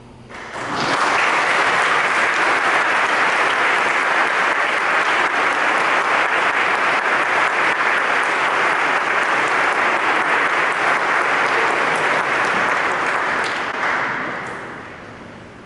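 Audience applauding in a large church at the end of a choir piece: the clapping swells in within the first second, holds steady, then dies away over the last two seconds.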